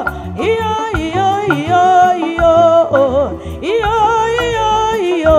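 Live gospel song: a woman singing lead into a microphone over electronic keyboard accompaniment, with sustained bass notes and a light, regular percussion beat.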